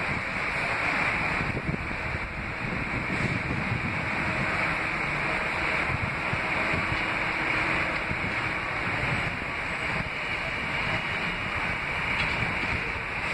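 Steady rushing of wind on the microphone, mixed with the running of an R160 subway train approaching along elevated track.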